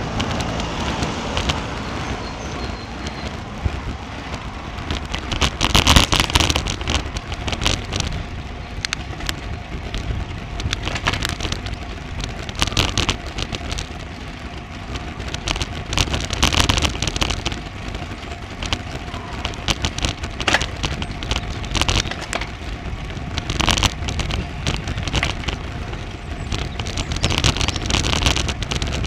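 Wind buffeting the microphone of a bicycle-mounted Garmin VIRB action camera, over a steady rush of tyre and road noise. Louder crackling gusts come every several seconds.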